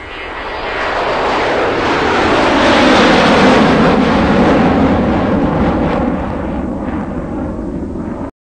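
A loud, steady rushing noise that swells over the first three seconds, fades slowly, and cuts off abruptly near the end.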